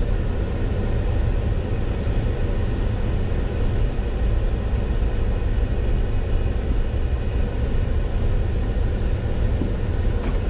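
Steady low rumble of a pickup truck driving along a dirt field road, heard from inside the cab.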